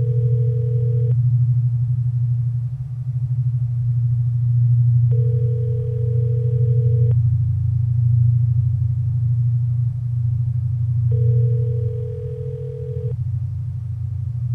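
Telephone ringback tone: a steady tone about two seconds long, repeating every six seconds, the call ringing at the other end with no answer. Under it runs a loud, steady low hum.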